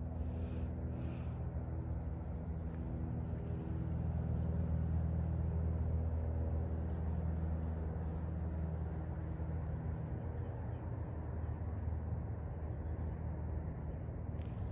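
A distant engine drones steadily at a low pitch, swelling slightly from about four to seven seconds in.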